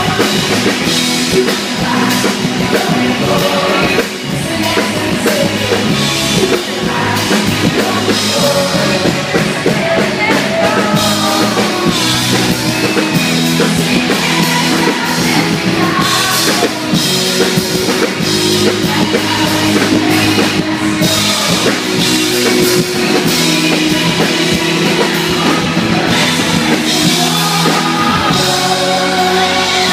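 Live band performing a pop-rock song at loud amplified volume, with lead vocals over drum kit and band.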